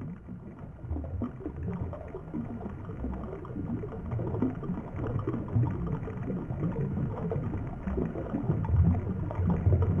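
Muffled, low gurgling and rumbling of stream water, as heard underwater. It grows a little louder near the end.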